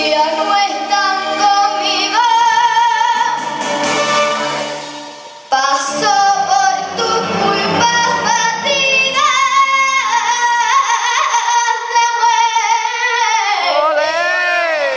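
A young girl singing a Spanish copla into a microphone over instrumental accompaniment, holding long notes with wide vibrato and ornamented runs. The sound drops briefly about five seconds in and then comes sharply back.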